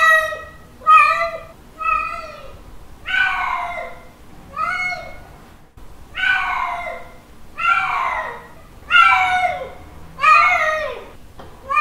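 Male cat giving repeated mating calls: about ten meows in a row, one every second or so, each rising and then falling in pitch, the later ones drawn out longer.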